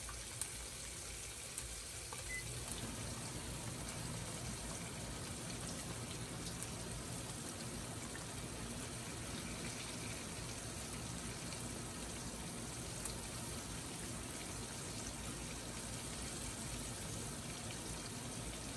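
Curry-coated red snapper pieces frying in hot corn oil in a metal pot: a steady sizzle.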